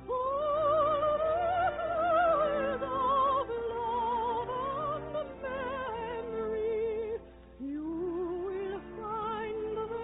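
Operatic singing with a wide vibrato over orchestral accompaniment, a song number in an old radio musical, with the narrow, dull sound of a vintage broadcast recording.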